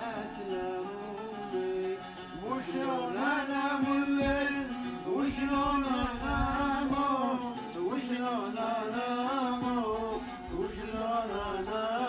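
Bağlama (long-necked saz) being plucked while a man sings long, wavering, ornamented notes of an Arabic folk song.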